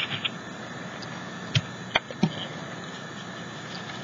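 Quiet handling noise of hands pressing and rubbing a plastic stencil mask on textured paper, with three soft taps near the middle.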